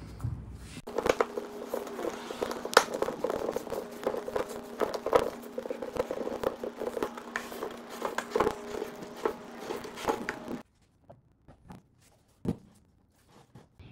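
Old dry wooden staved bucket of a hand-cranked ice cream freezer being gripped and pushed with gloved hands: a dense run of cracks, creaks and scrapes from the wood, over a steady hum. It stops abruptly about three-quarters of the way through, and a single knock follows.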